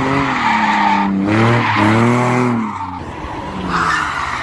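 BMW saloon drifting: the engine revs up and down, its pitch rising and falling several times, over the screech of spinning, sliding tyres. About three seconds in, the sound changes to another BMW sliding, with a louder burst of tyre screech near the end.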